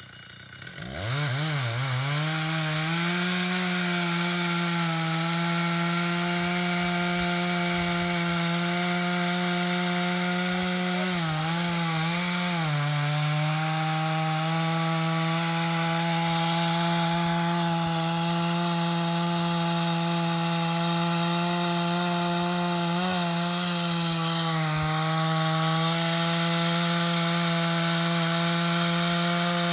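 Chainsaw revving up about a second in and running at full throttle cutting into a large willow trunk. Its pitch dips briefly under load a few times, then recovers.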